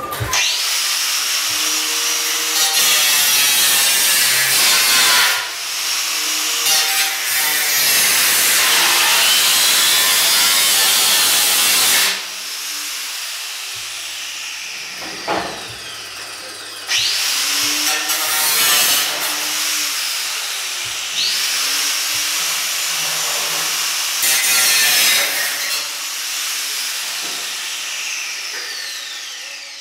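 Angle grinder with a cutting disc cutting through the sheet steel of a Ford F100 cab in several long cuts, the disc spinning up at the start of each and easing off to a quieter run between them.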